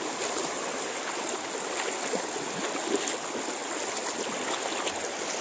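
Shallow river water flowing over a pebble bed and around a low line of stacked river stones: a steady rush.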